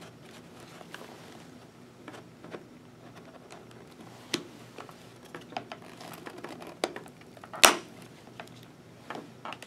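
Hands handling a helmet's foam liner and an intercom speaker with its cable, giving scattered small rustles and plastic clicks, with one louder sharp click late on.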